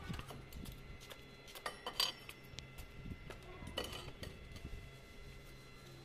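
Stainless steel railing tubes clinking and knocking as they are handled, a few separate light metallic strikes, the clearest about two seconds in and just before four seconds, over a faint low hum.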